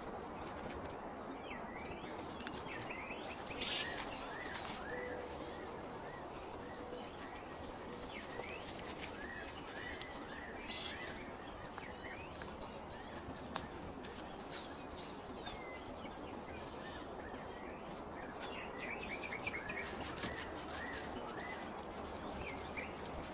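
Forest ambience: small birds chirping again and again over a steady background hiss, with one sharp click about halfway through.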